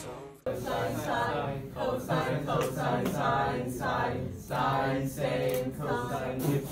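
Several voices singing together, starting suddenly about half a second in, just after a guitar-backed song fades out.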